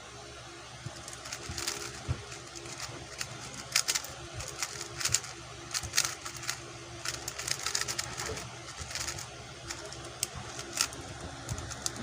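Rapid plastic clicking and clacking of a QiYi X-Man Tornado V2 speedcube being turned fast during a solve, in quick uneven flurries of turns.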